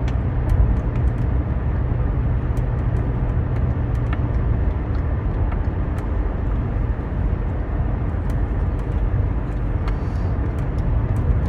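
Faint, scattered soft clicks of a silicone pop-it fidget toy's bubbles being pressed on its unsatisfying side, barely audible over a steady low rumble.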